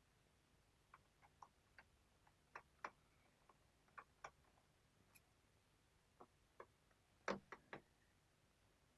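Faint, irregular small clicks and ticks of a screwdriver working the bottom-case screws of a Lenovo Flex 3-1480 laptop, with a quick run of louder clicks about seven seconds in.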